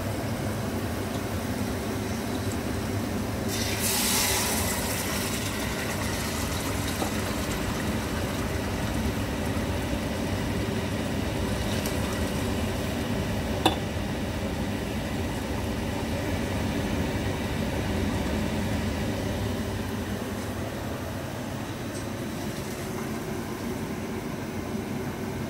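Water poured from an electric kettle into a mug and tipped from the mug into a pot of browned lamb on the stove, cup after cup, over a steady hum. A single sharp knock comes about 14 seconds in.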